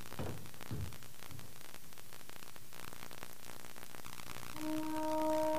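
A steady hiss, with a few soft footsteps in the first second as a man climbs carpeted stairs. Near the end a held low tone with overtones sets in and grows louder.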